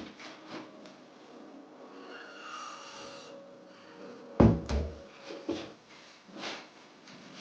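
Workbench handling noises: rubbing and scraping, one loud knock about four and a half seconds in, then a few lighter knocks.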